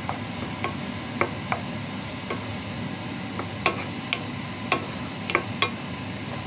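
Chopped onion sizzling in melted butter in a frying pan while a wooden spoon stirs, knocking against the pan in about a dozen irregular light clicks that come more often in the second half.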